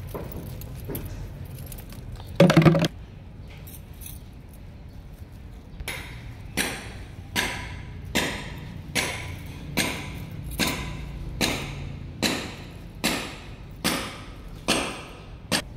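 A short, loud cry about two and a half seconds in. From about six seconds on comes a very regular series of metallic clinks, roughly one every 0.8 seconds and about a dozen in all. Each clink rings briefly, like a metal pot or bowl being struck.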